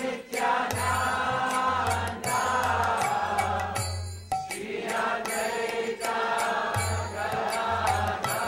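Devotional kirtan: voices chanting a Sanskrit mantra in long held lines, with musical accompaniment keeping a regular beat.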